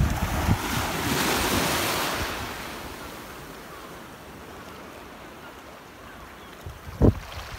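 Small waves washing on a beach. The surf swells about a second in and then fades. Wind buffets the microphone at the start, with one short thump near the end.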